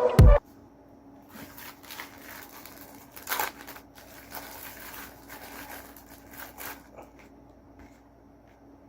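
Light crinkling and rustling of food packaging being handled, in scattered short bursts, the loudest about three and a half seconds in.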